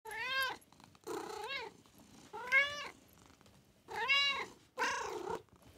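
A domestic cat meowing five times, about a second apart; each meow is drawn out and rises then falls in pitch.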